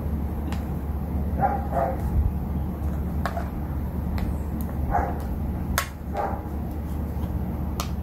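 A dog barking now and then, single barks or pairs a few seconds apart, over a steady low hum. A few sharp clicks fall in between.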